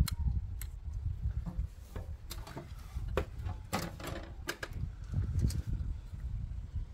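Wind rumbling on the microphone, with scattered sharp clicks and knocks from handling a caulking gun; most of the clicks fall in the middle few seconds.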